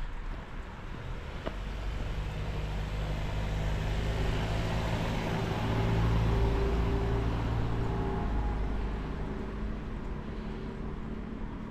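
A car drives past on a paved road. Its engine and tyres grow louder, are loudest about six seconds in, and fade away over the next few seconds.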